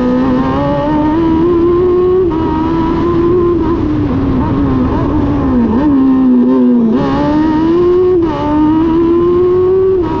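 Single-seater race car's engine, heard close from on board, with the revs rising and falling as it accelerates and slows through the cones. The note drops sharply twice about six and seven seconds in, then dips briefly about eight seconds in before climbing again.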